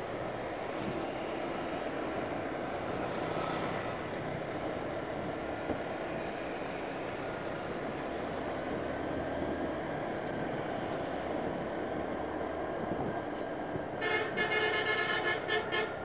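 Steady road and wind noise of riding on a motorcycle. About 14 seconds in, a tour bus's 'telolet' musical horn sounds a pulsing chord of several tones for about two seconds.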